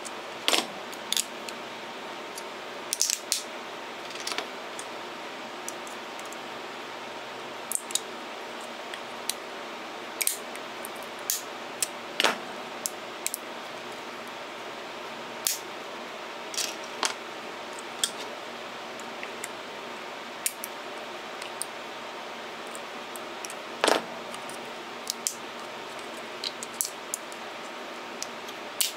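Small plastic mount parts and metal needle-nose pliers being handled and fitted together: scattered sharp clicks and taps, a few louder knocks, over a steady hiss.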